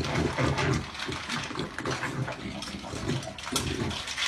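A dog eating dry kibble from a metal bowl, with rapid, irregular chewing and crunching.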